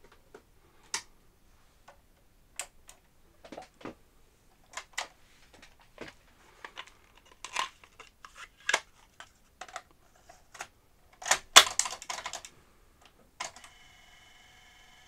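Aiwa XK-007 Excelia cassette deck being worked by hand: a series of clicks and clunks from the cassette door, transport buttons and tape mechanism. The loudest is a cluster of clonks about three-quarters of the way in, the normal clonk of this model's solenoid grabbing the cassette shell. A faint steady tone sets in near the end.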